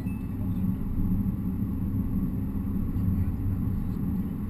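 Steady low drone of a Skoda Laura TDI cruising on the highway, its turbodiesel engine and tyre noise heard from inside the cabin.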